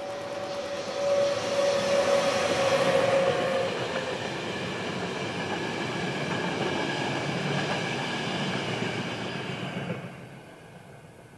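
A train passing close by. Its wheels rumble on the rails, loudest in the first few seconds, with a steady whine that fades out after about three seconds. The rolling noise drops away suddenly near the end.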